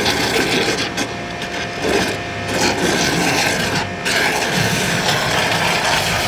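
Wash mitt scrubbing the soapy paintwork of a car in several long strokes, each one to two seconds.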